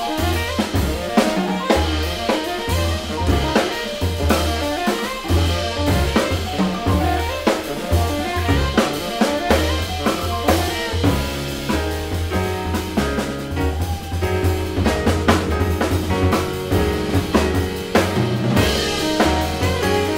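Live jazz quartet playing: tenor saxophone lead over piano, plucked double bass and a busy drum kit, with the drums the most prominent part.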